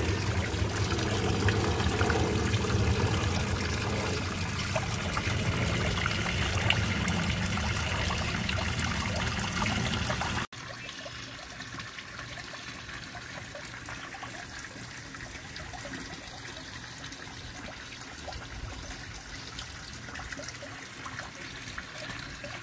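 Water spilling from a backyard pond waterfall's sheer spillway and splashing into the pond below, a steady flow. About halfway through it cuts suddenly to a quieter, more distant sound of the same falling water.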